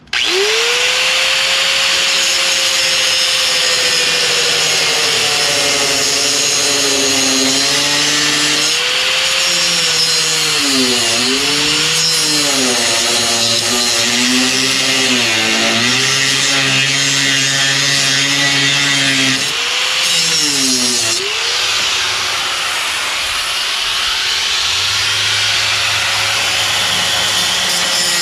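Corded angle grinder spinning up, then grinding out stripped Phillips screw heads on a lawn tractor's metal body panel. Its motor whine sags and recovers several times as the disc bites under load, over a steady hissing grind.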